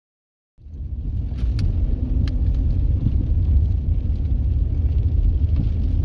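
Car driving on a wet road, heard from inside the cabin: a steady low rumble of road and engine noise that starts abruptly about half a second in, with a few faint ticks.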